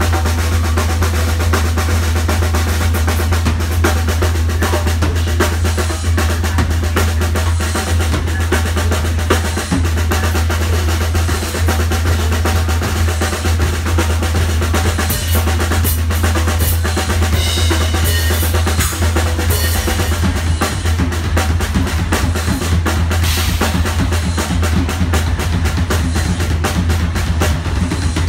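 A ddrum acoustic drum kit played fast and continuously, with quick bass drum and snare strokes under cymbals.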